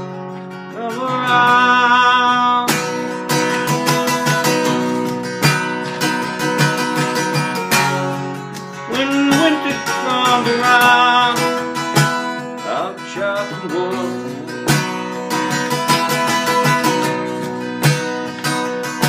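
A 1964 Gibson J-50 acoustic guitar strummed with a flat pick, playing chords in an instrumental break of a folk song.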